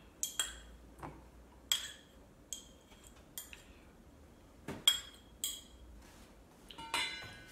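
Metal utensil clinking and scraping against a small ceramic ramekin and a stainless-steel mixing bowl as butter is scraped out into the bowl: a scatter of sharp, light clinks, with a longer ringing clink near the end.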